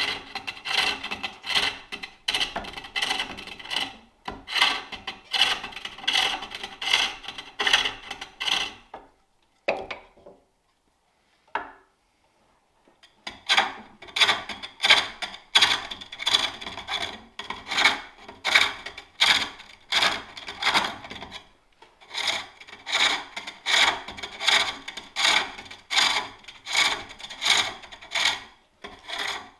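Turning tool cutting a wooden bowl on a spring-pole lathe: a rasping cut with each treadle stroke, about one and a half strokes a second. The cutting stops for about four seconds around nine seconds in, with a couple of short knocks, then starts again.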